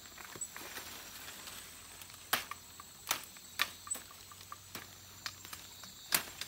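Knife blade chopping at a thin wooden stick: several sharp, irregularly spaced knocks, the loudest near the end, over a steady high-pitched insect hum.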